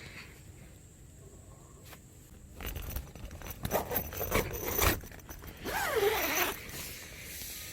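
Scraping and rustling of gear being handled, in two bouts: one starting about two and a half seconds in with scattered clicks, a shorter one around six seconds with a sliding sweep.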